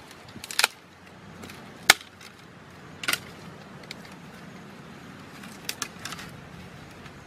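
Dry dead branches cracking and snapping as they are bent and broken by hand. There are three sharp cracks, the loudest about two seconds in, then lighter snaps and crackles near the end.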